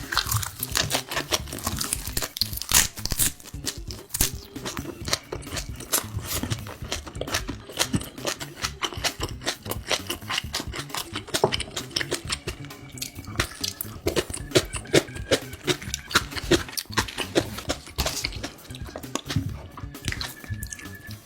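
Close-miked chewing and wet mouth sounds of a person eating spicy Korean pork, a dense run of sharp clicks and crunches.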